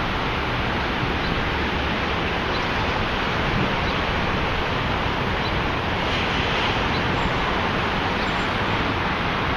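Steady rushing wind noise on the microphone, an even roar without breaks or distinct events.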